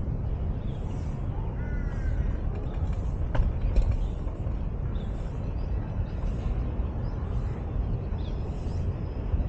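Outdoor park ambience: a steady low rumble, with faint high chirps repeating about once a second and a crow's caw about two seconds in.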